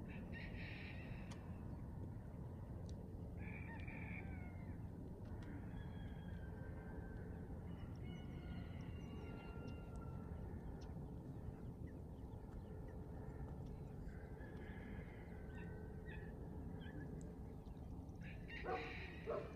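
Outdoor ambience of a steady low rumble with scattered distant bird calls every few seconds, and a louder short call near the end.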